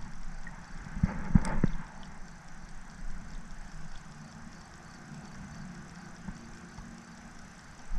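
Light knocks and handling sounds of a fishing rod against a kayak, a few of them in the first two seconds, then only a faint steady hiss.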